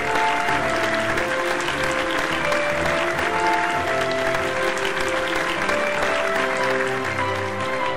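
Audience applauding over instrumental background music of held notes; the applause thins out near the end while the music carries on.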